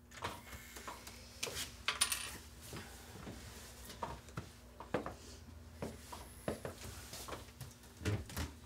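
Quiet, irregular clicks and light knocks of a front door and its metal handle being worked, over a faint steady low hum.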